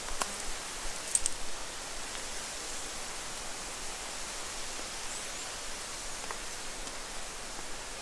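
Steady, even hiss of running water from a stream. A few short sharp clicks sound in the first second and a half.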